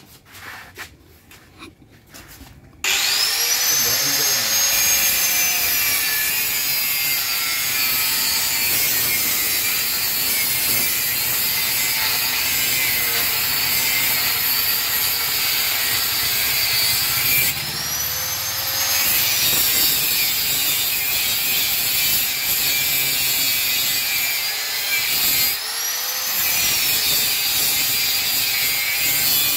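Angle grinder starting about three seconds in and grinding into the steel of a motorcycle frame. Its whine sags as the disc is pressed into the metal and climbs back when it is eased off, a few times over.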